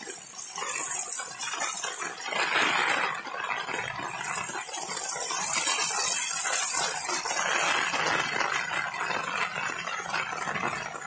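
Heavy monsoon rain falling, a dense steady hiss that swells louder in the middle.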